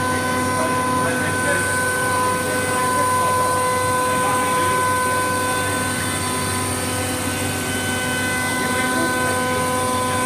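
CNC nesting centre for furniture panels running steadily, its machinery giving an even whine of several held tones over a hiss.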